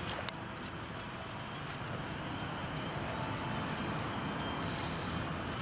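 Steady outdoor background rumble with no clear engine tone, and a sharp click about a third of a second in.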